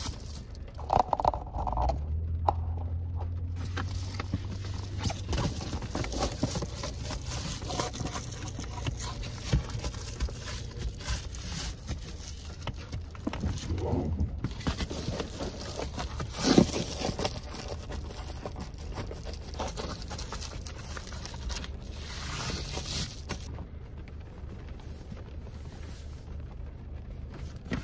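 Crinkling and rustling of reflective bubble-foil window covers being fitted to a car's windows, with scattered knocks and handling noises, over the low steady hum of the car's engine idling.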